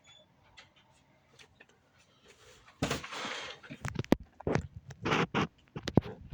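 A rush of noise about three seconds in, then a run of irregular knocks and bumps: the camera or phone is being jostled and handled as it starts to tip over.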